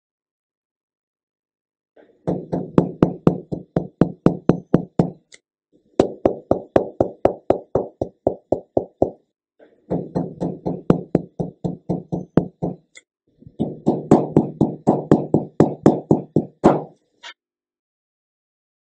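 Chest percussion: a finger striking the middle finger of a hand laid flat on the chest wall, in four quick runs of knocks, about four or five a second, each run about three seconds long.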